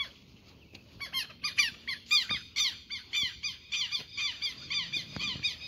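Southern lapwings (quero-quero) giving a run of sharp, repeated alarm calls, short falling notes about two to three a second, starting about a second in. This is the angry calling of birds with a nest close by.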